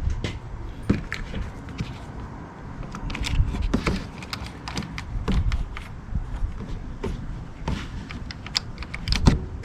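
Scattered, irregular clicks and knocks from hand tools being worked at a car battery's terminals.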